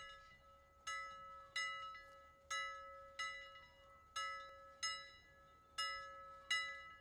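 A single bell struck over and over, about once every three quarters of a second, each stroke ringing out and fading over a steady underlying hum.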